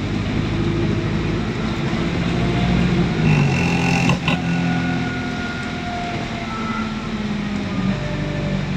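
ADL Enviro400 double-decker bus, converted to diesel, running, with a deep engine note and several thin whining tones that come and go above it. There is a short knock about four seconds in.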